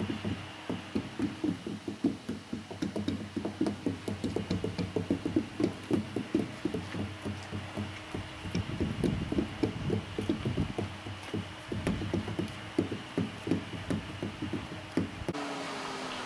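Rapid, uneven knocking, about three to four strokes a second, of hand tools working at the tread of a snow grader's large tyres, over a steady low machine hum. About fifteen seconds in, the knocking stops abruptly and only a steady machine hum remains.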